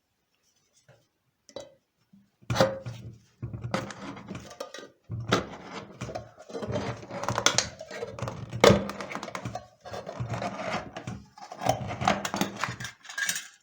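Can opener of a folding knife cutting its way around the bottom of a tin can: a run of quick, irregular metal-on-tin strokes, crunching and scraping with the can ringing, starting about two and a half seconds in. It is a rough but fast cut.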